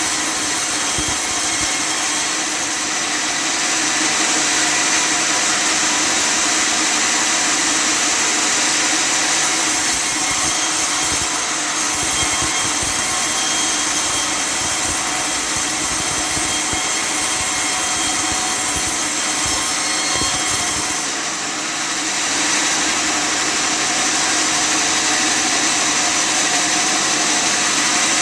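Custom-made table sawmill running steadily as it cuts wood, a loud, continuous machine noise with a high, hissing edge. It dips briefly about three quarters of the way through, then picks up again.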